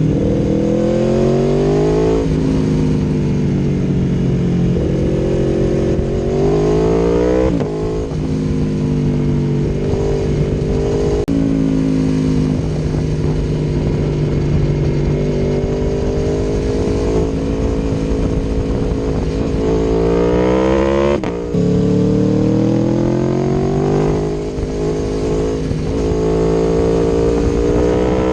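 2018 Aprilia Tuono V4 1100 Factory's V4 engine through an Akrapovic exhaust, under way: the engine note climbs and then drops sharply several times as the bike shifts gears.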